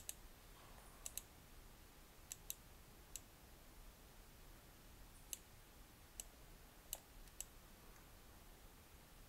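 Sharp computer mouse clicks, about ten, scattered and some in quick pairs, over near-silent room tone.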